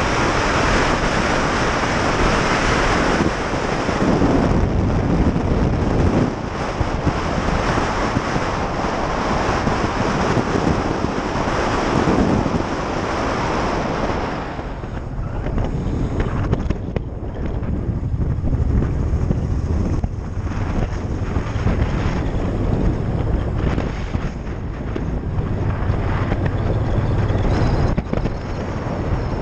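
Motorcycle on the move: wind rushing over the microphone mixed with engine and road noise. About halfway through the wind noise eases as the bike slows, leaving the engine's low note more to the fore.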